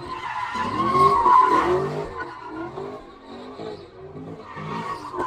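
A car's tires squealing in a skid while its engine revs rise and fall repeatedly. The squeal is loudest about a second in.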